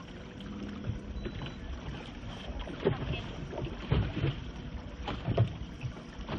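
Wind buffeting the microphone over choppy lake water, with water lapping against a boat and several low thumps in the second half.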